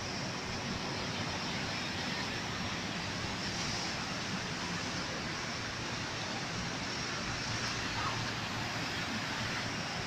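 Sea surf washing over rocks and against a breakwater: a steady rushing noise with no single crash standing out.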